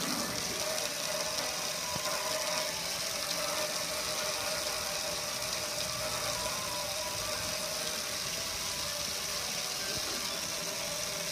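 Pressure washer running steadily, its jet of water spraying and splashing over a gas grill's metal lid and control panel: a steady hiss of spray over a constant hum from the machine.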